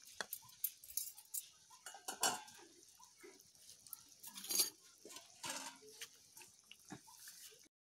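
Fish curry boiling in a steel kadai over a wood fire: a steady hiss with irregular sharp pops and crackles, the loudest about two and four and a half seconds in. A metal ladle clinks against the pan at the start.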